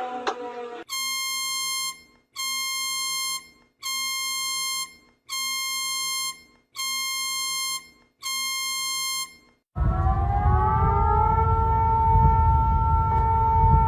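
Emergency alert tone: six long electronic beeps, each about a second long with short gaps between them. About ten seconds in, a warning siren starts, its pitch rising for about a second and then holding steady over a low rushing noise.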